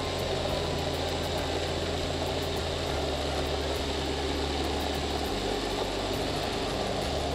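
Countertop blender motor running steadily while blending a thick green sauce with its lid off. Its low hum shifts in pitch a few times partway through.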